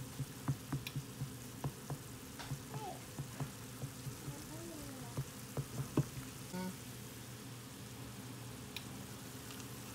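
Ground beef sizzling in a frying pan while a silicone spatula stirs it, knocking softly against the pan about three times a second. The stirring stops about six seconds in, leaving a steady sizzle.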